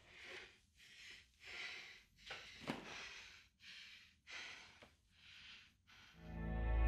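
A woman breathing heavily, a run of about seven deep breaths in and out with short pauses between them, with a small sharp click near the middle. Music swells in near the end.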